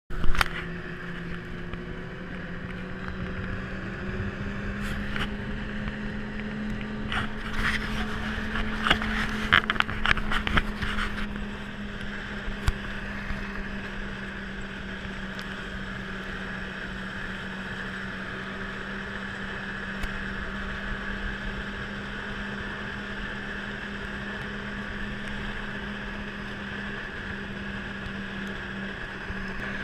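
Snowmobile engine running steadily at cruising speed, its pitch rising slightly a few seconds in. A loud knock comes at the very start, and a burst of rattling knocks runs from about a quarter to a third of the way through.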